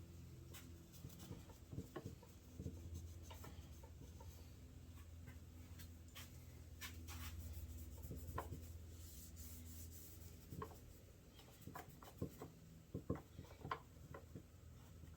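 Faint rubbing and scraping with scattered light clicks and taps as small transaxle parts are handled and scrubbed clean, thickening into a quick run of taps in the last few seconds.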